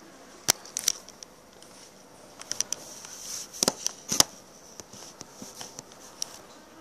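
Handling noise from a phone being picked up and moved about on a kitchen counter: a scatter of sharp clicks and knocks, the loudest about three and a half to four seconds in.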